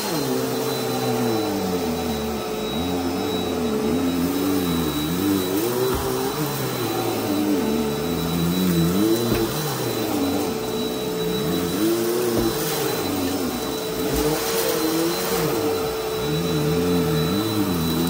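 Bissell PowerForce Helix Turbo Rewind upright vacuum running on a shag rug: a steady motor whine, under it a lower hum that rises and falls in pitch every second or two as it works over the rug, with a few faint crunches of debris being picked up.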